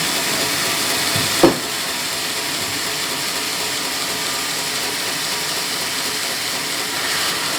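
Sawmill saw running through a teak log with a steady, hissing mechanical noise. A single sharp knock comes about one and a half seconds in.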